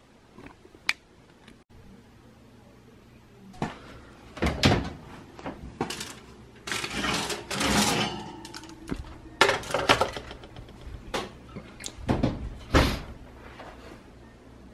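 Oven door and a foil-lined metal pan of baked pastries being taken out of an electric oven and set down on the stovetop: a string of knocks and clatters with scraping and rustling foil.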